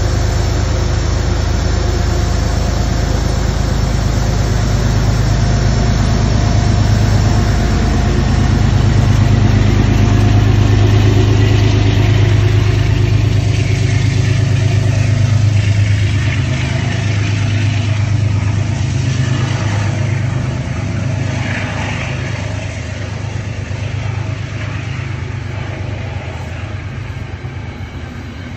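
Diesel engine of a GE P32AC-DM passenger locomotive running under power as its train moves past, a steady low hum with overtones. The engine sound is strongest in the first half, then fades over the last several seconds as the passenger coaches roll by.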